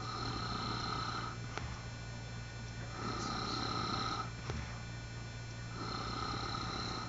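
A man snoring with a pig-like rasp, one long snore about every three seconds.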